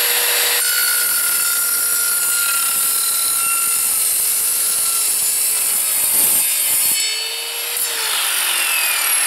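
Evolution R210SMS sliding mitre saw's 1500 W motor and multi-purpose blade cutting through steel Unistrut channel. From about half a second in to about six seconds the blade is in the metal, a loud harsh cutting noise with a ringing tone. Then the motor runs free for a moment and winds down near the end.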